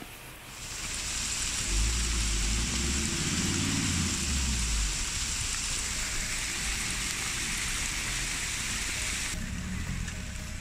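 Heavy rain mixed with hail falling hard, a dense steady hiss. A deep low rumble sounds underneath from about two to five seconds in, and the downpour cuts off suddenly about a second before the end.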